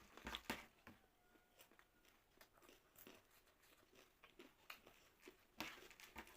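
Faint crunchy chewing of jhal muri (spiced puffed rice) close to the microphone, with scattered small crackles and clicks. The crackling is louder just after the start and again near the end.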